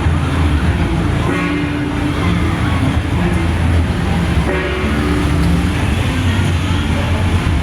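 Loud, steady low drone from procession float trucks running. Brief stacks of higher tones come in a little over a second in and again around four and a half seconds.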